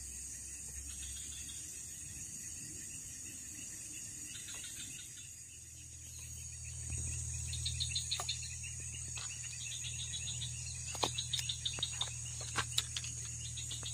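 Crickets and other insects chirring, with a steady high drone and rapid pulsed chirps over it. A low rumble comes in about halfway, and a few sharp clicks and taps come in the second half.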